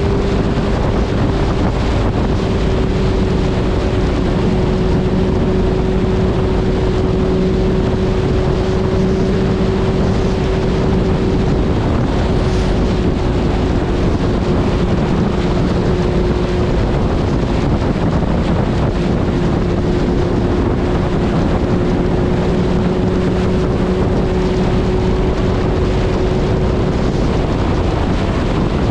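Suzuki Hayabusa inline-four engine running at a steady highway cruise, its note holding one pitch that sags slightly, under heavy wind noise on the microphone.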